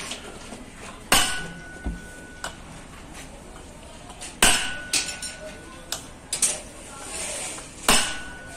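A hammer strikes a steel part of a truck's crown-and-pinion differential assembly three times, about three seconds apart. Each blow rings briefly with a clear metallic tone, and lighter metal clinks fall between them.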